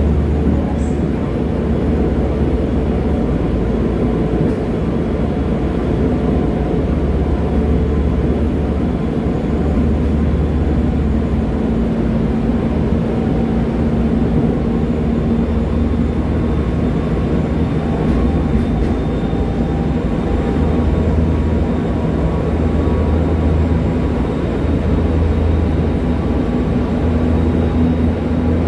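Cabin noise of a Seoul Subway Line 1 electric commuter train running at speed: a steady rumble from the running gear on the rails with a low droning hum.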